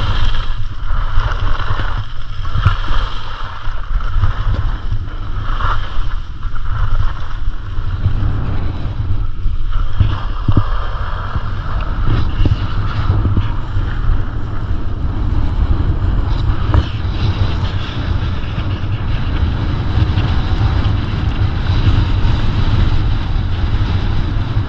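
Wind rushing over the microphone of a camera carried by a skier moving downhill: a loud, steady low rumble with a fainter hiss above it.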